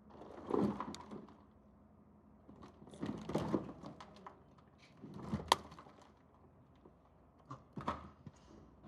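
Termite-damaged wooden cabinet parts being handled: four short bouts of knocking, scraping and rustling, one with a sharp click about halfway through.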